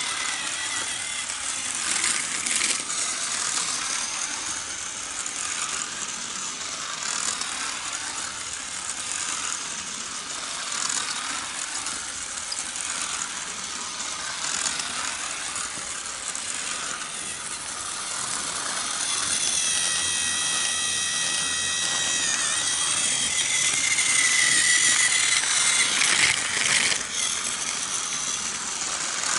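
A small battery-powered toy car and a toy locomotive run on segmented plastic tracks, making a steady clattering rattle of little wheels and motors. About two-thirds of the way through, a high whine comes in for several seconds, then fades.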